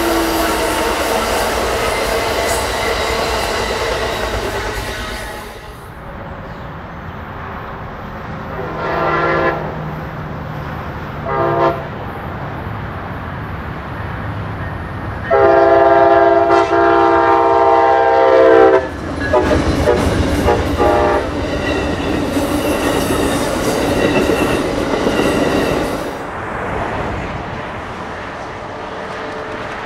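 Bilevel Amtrak Superliner passenger cars rolling past with the clickety-clack of wheels on the rails. After a cut, a Siemens ALC-42 Charger diesel-electric locomotive approaches, sounding its air horn three times: about a second, a brief toot, then a long blast of about three and a half seconds. Its engine and the train then rumble by.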